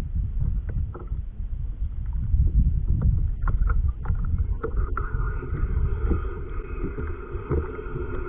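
Wind buffeting the microphone and water moving around a small fishing kayak at sea, with a few small clicks. About five seconds in, a steady hum of several tones joins in and holds.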